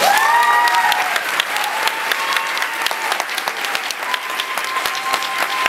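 Audience applauding, with a few voices cheering.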